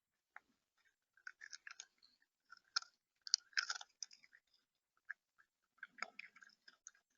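Seed being pecked and cracked at a bird feeder, right at the microphone: irregular crunching clicks in short clusters, loudest about halfway through.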